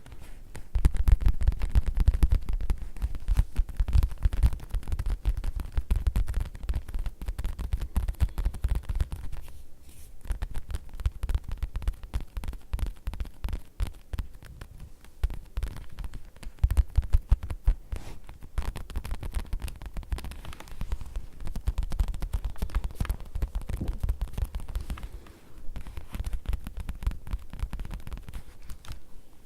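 Fingertips tapping rapidly on leather, a dense run of soft, dull taps with a lot of low thud, easing briefly about ten seconds in and again near the end.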